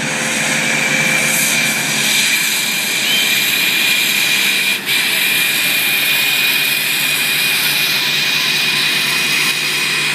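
Two 2.5 turbodiesel engines, a Land Rover Discovery's and a Jeep Cherokee's, held at high revs under full load as the trucks pull against each other on a tow strap, tyres spinning in dirt. The noise builds over the first second, then holds steady with a high whine running over it.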